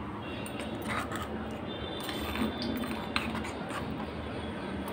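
A few faint, scattered clicks and light scrapes of a steel spoon in a clay pot as rice, curd and rice water are stirred together.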